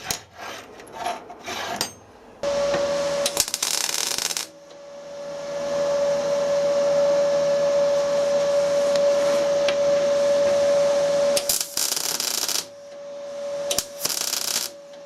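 Welding equipment switching on and humming steadily, with three short bursts of electric welding arc, each about a second long: tack welds fixing a bolt to a steel bench. Small handling clicks come first.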